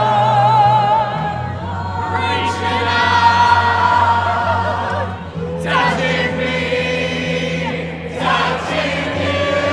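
A big crowd singing along together, led on a microphone, over loud amplified music; the voices hold long, wavering notes, with short breaks between lines.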